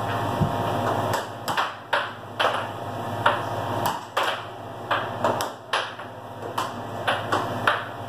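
Air hockey puck clacking sharply and irregularly off plastic mallets and the table rails during a fast rally, over the steady low hum of the air hockey table's blower.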